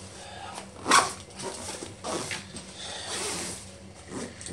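Zip of a padded fishing rod holdall being pulled along by hand, with fabric rustling as the bag is handled, and one sharp, louder sound about a second in.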